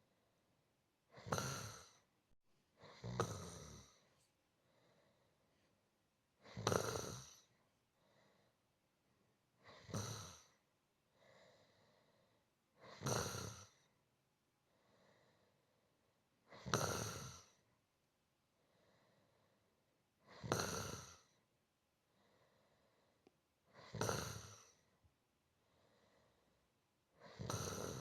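A sleeping person snoring softly in a slow, even rhythm: a short snore about every three and a half seconds, each followed by a fainter breath.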